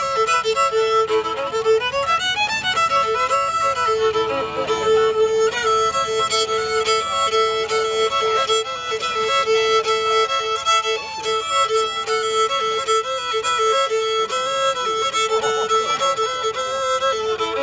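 A solo violin played with the bow by a boy: a tune of short notes that keeps coming back to one repeated note.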